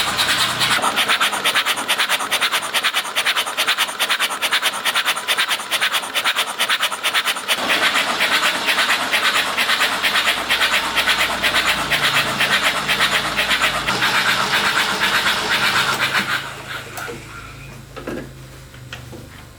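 Rapid, continuous scraping with a fast, even stroke rhythm, which stops about sixteen seconds in; a few faint knocks follow.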